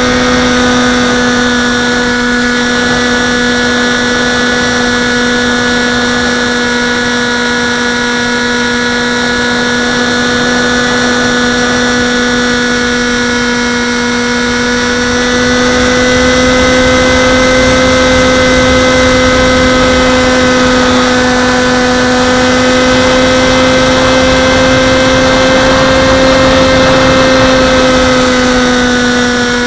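Dynam Hawk Sky RC plane's electric motor and propeller running steadily in flight, a continuous whine with wind rush over the airframe. The pitch rises slightly about halfway through and drops back again near the end.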